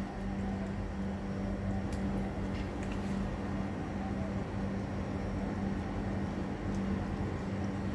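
Steady low mechanical hum with an unchanging low drone and rumble, like a machine motor running, with a few faint clicks.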